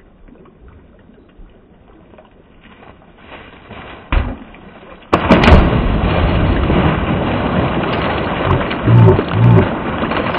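A flat-coated retriever leaping into a shallow creek: after quietly flowing water and a short knock about four seconds in, a sudden heavy splash hits a second later, followed by loud, continuous splashing and churning water.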